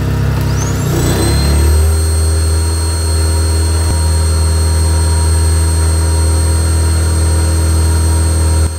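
Parkside PISE 800 A1 inverter generator's 56cc petrol engine speeding up as an 800 W canister vacuum cleaner is switched on: the vacuum motor spins up with a rising whine, and the generator's engine note steps up and holds steady under the load. The sound drops suddenly just before the end.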